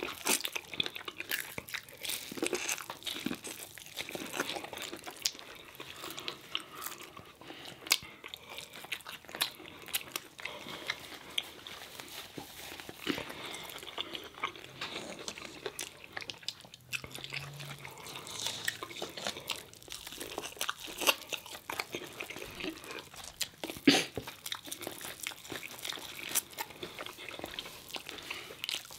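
Close-miked eating: two people biting and chewing corn on the cob and fried food, a steady stream of irregular wet mouth clicks and crunches.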